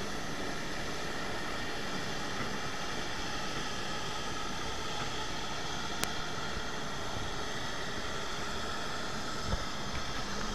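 Steady whine and rush of jet engines running at idle on the apron, over the low running of the pushback tug's engine. A single sharp click about six seconds in.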